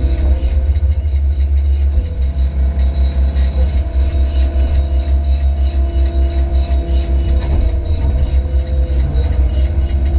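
Diesel engine of an 8-tonne Hyundai midi excavator running under load, heard from inside the cab while the boom and bucket are worked. A deep, pulsing engine note carries a steady hydraulic whine that shifts pitch a couple of times as the bucket is lowered to dig.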